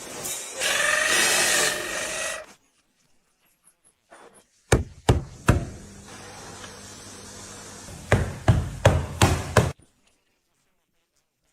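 Workshop tool sounds: about two seconds of loud whirring, then sharp knocks and taps, three at first and then a quick run of about six.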